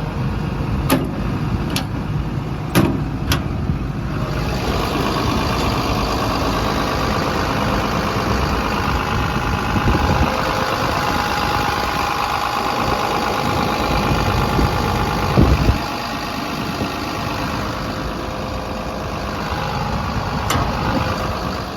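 Komatsu PC210LC-11 excavator's diesel engine idling steadily, which the seller takes for an engine running great. A few sharp clicks come in the first few seconds, the engine sound grows fuller about four seconds in, and there is one thump near the middle.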